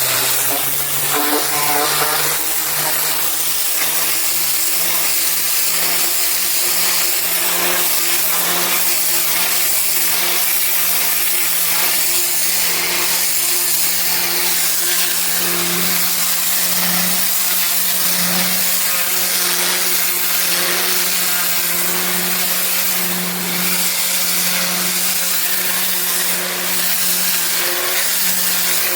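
Pressure washer running steadily, its motor and pump humming under the hard hiss of a turbo nozzle's spray cleaning block paving.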